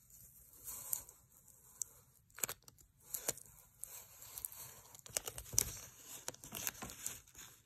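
White transfer tape being slowly peeled off a blue adhesive stencil on a wooden sign board: soft, irregular crackling and rustling, with sharper crackles here and there.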